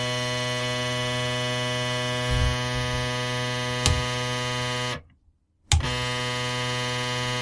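Floppy disk drive's stepper motor pulsed by an Arduino, buzzing one steady tone. A light click comes about four seconds in, and the tone cuts out for under a second about five seconds in, then comes back with a click.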